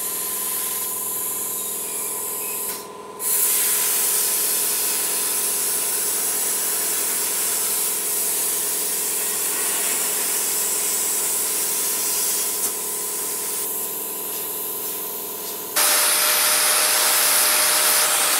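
CNC plasma table cutting steel plate: a steady hiss of the plasma arc and air over a hum from the cutter, dipping briefly about three seconds in and coming back louder. Near the end it cuts abruptly to an angle grinder with a red sanding disc running steadily.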